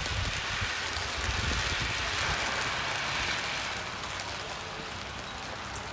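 Steady rain falling, a continuous hiss with scattered individual drop taps. It eases a little after about four seconds.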